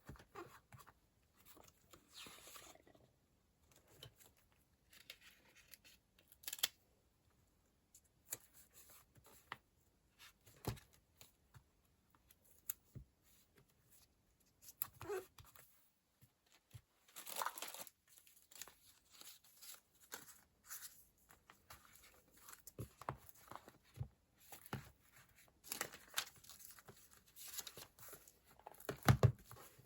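Paper and stationery being handled at a desk: short rustles and peeling or tearing sounds, broken up by scattered light taps and clicks.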